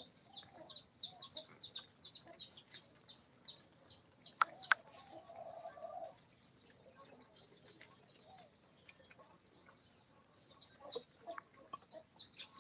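Faint, high, falling bird chirps repeated rapidly, about four a second, stopping about four seconds in and starting again near the end. In the gap come two sharp clicks and a brief lower sound.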